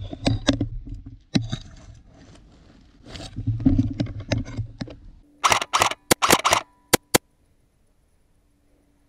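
A run of sharp clicks and knocks over a low rumble, then a quick cluster of louder sharp cracks about five to seven seconds in, followed by silence.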